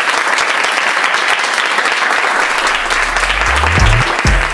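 Audience and panel applauding, a steady dense clapping. A low rising tone comes in about three seconds in, under the applause.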